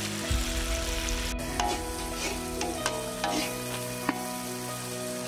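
Whole marinated chickens frying in oil in a pan: a steady sizzle, with several sharp clicks between about one and a half and four seconds in.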